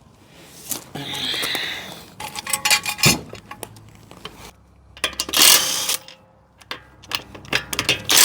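Hand tools and brake parts clinking and knocking against each other during a brake pad change, with a few louder, harsher bursts of rattling or scraping about a second in, midway and at the end.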